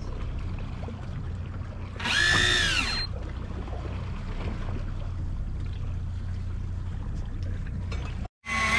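Steady low hum of a boat's idling outboard engines, with a motor whine lasting about a second about two seconds in, its pitch rising then falling, as the electric deep-drop reel runs briefly. The sound cuts off abruptly shortly before the end.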